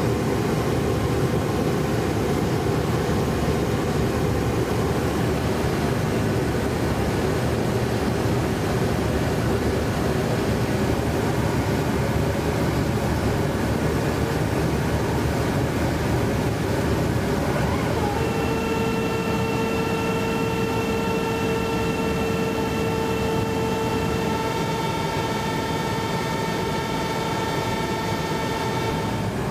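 Steady aircraft engine and airflow noise heard from inside a refueling tanker. About two-thirds of the way in, a steady whine with several pitches joins it and holds.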